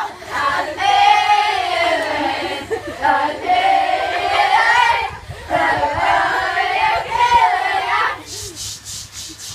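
A group of young people singing a camp chant loudly together, stopping about eight seconds in.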